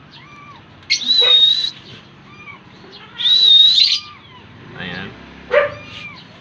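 Pet lovebirds in an aviary calling: two loud, shrill calls, each held for over half a second, with softer short chirps repeating in between and a sharp falling cry near the end.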